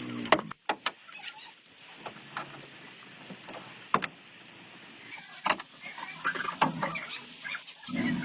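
Scattered sharp metallic clicks and knocks of hand work on a vehicle. Near the end a motor starts running with a steady low hum.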